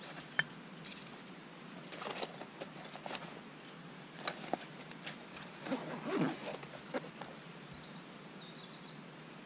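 Hands packing small metal gear into a fabric pouch: cloth rustling with scattered light clicks and taps, and a short run of louder rustling about six seconds in.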